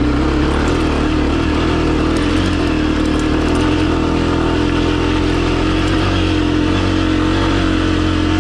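Honda CRF250F's air-cooled single-cylinder four-stroke engine running steadily under way on a dirt trail, holding an even pitch without big revs.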